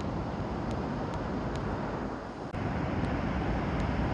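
Wind buffeting the microphone outdoors: a steady low rumble of noise, with an abrupt change in level about two and a half seconds in.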